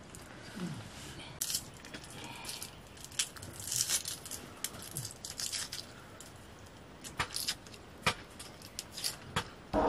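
Dry, papery red-onion skin crackling and tearing as it is peeled and cut with a large curved knife, in irregular scattered snaps and rustles.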